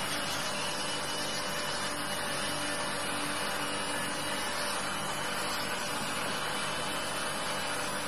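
Electric nail drill running at a steady speed, its bit filing down a toenail treated for fungus: an even hiss with a thin steady whine over it.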